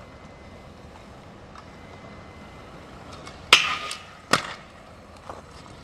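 Freestyle kick scooter striking a metal rail: two sharp clacks about a second apart, the first with a brief ringing metal scrape, then a faint tap.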